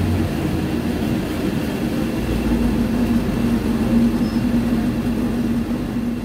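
Scania DC09 five-cylinder diesel engine of a Scania K250 UB city bus, heard from inside the passenger cabin while the bus is driving. A steady low drone with road rumble, and the engine note swells about two seconds in.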